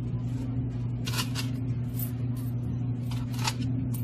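A steady low electrical hum, with several short dry rustles breaking in over it.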